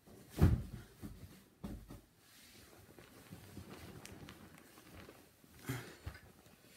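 A few dull knocks and rustles of someone moving about close to the device. The loudest knock comes about half a second in, and there are softer ones near the end.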